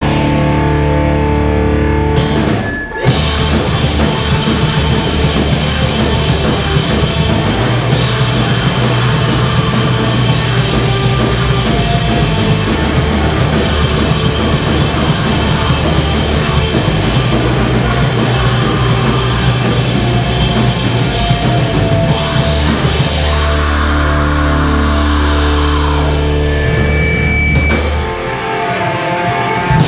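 A live rock band playing loud, heavy music on distorted electric guitar, bass guitar and drum kit. The band stops briefly about three seconds in and comes back in on a hard hit, and drops again near the end.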